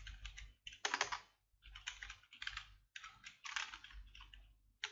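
Typing on a computer keyboard: irregular little runs of keystrokes with short pauses between them.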